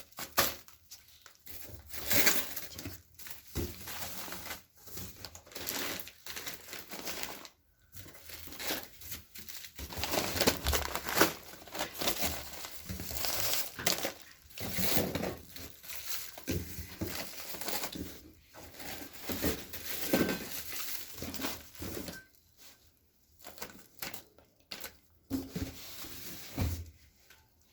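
Parcel packaging being torn and crumpled as it is opened, in irregular rustling bursts with brief pauses.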